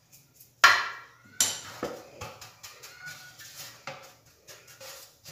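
A metal baking tray knocked and tapped against a countertop as flour is worked over its oiled surface: two sharp bangs about half a second and a second and a half in, then a run of lighter knocks.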